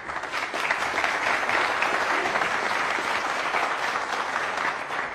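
Studio audience applauding, a dense steady clapping that begins to die away near the end.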